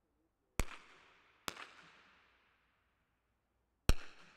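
Three shots from .22 rimfire smallbore target rifles: two about a second apart, then a third a couple of seconds later, the loudest. Each is a sharp crack with a reverberating tail that dies away over about a second.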